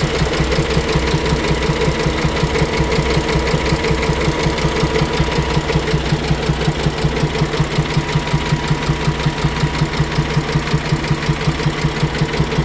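Paccar MX-13 inline-six diesel in a Peterbilt 579 idling steadily with a regular, rhythmic knock: the knock noise problem the owner is showing.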